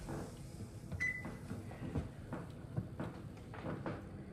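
Quiet kitchen handling noises: a few light knocks and clicks, with a short high ring about a second in.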